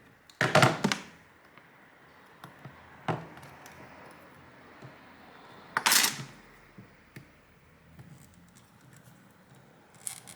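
A hand tool scraping and clicking against the laptop's screen assembly while tugging at an adhesive pull-tab: a loud scrape about half a second in, a softer click near three seconds, and another sharp scrape about six seconds in.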